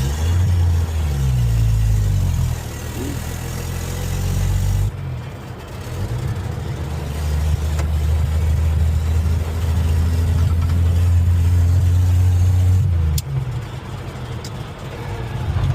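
1966 Chevy C10 pickup's engine pulling under load while being driven. The pitch shifts over the first couple of seconds, the note cuts off sharply about five seconds in, then the engine pulls steadily for several seconds before easing off near the end. These are the changes of a hard-to-shift transmission whose gears the driver is struggling to find.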